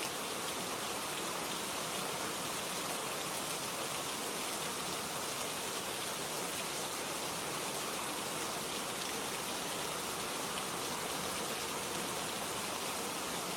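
Steady rain falling, an even hiss of many raindrops with faint individual drop ticks and no change in intensity.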